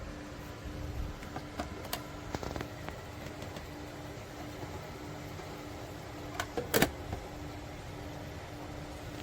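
Cool-mist humidifier running: a steady low hum that pulses evenly on and off. A few light clicks come around two seconds in, and a louder cluster of sharp clicks comes near seven seconds.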